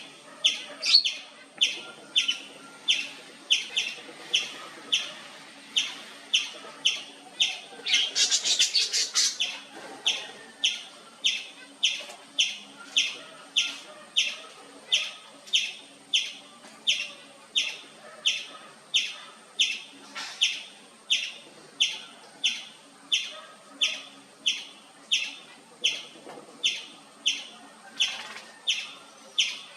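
Indian palm squirrel (three-striped palm squirrel) chirping nonstop, with sharp high chirps repeated about twice a second. About a third of the way in, a louder flurry of rapid chirps comes before the steady rhythm resumes.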